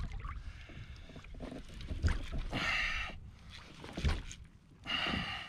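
Shimano Ocea Jigger conventional reel being cranked under heavy load against a big fish, with a few low knocks and two short rasping hisses about two and a half seconds apart.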